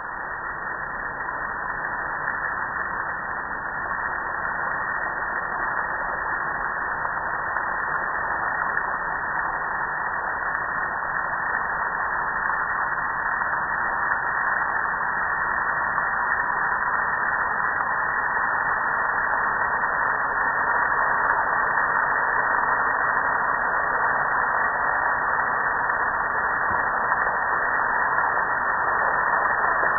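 Water pouring and splashing onto a gas grill and the concrete beneath it: a steady rushing noise that grows gradually louder.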